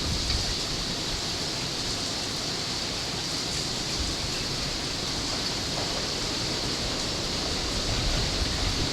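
Steady outdoor noise: wind rumbling on the microphone under an even high hiss.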